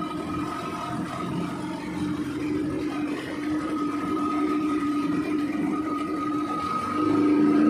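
Speedboat engine running steadily under way, driving a reworked Solas size-12 propeller, with water and hull noise beneath; it grows louder about seven seconds in.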